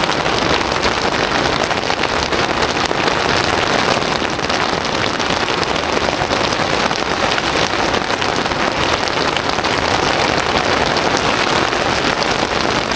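Heavy rain coming down hard in a steady, dense patter of drops.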